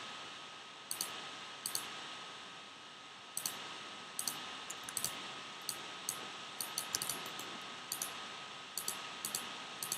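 Computer mouse button clicking: a dozen or so irregular, sharp clicks, many in quick press-and-release pairs, over a steady hiss and a faint high steady tone.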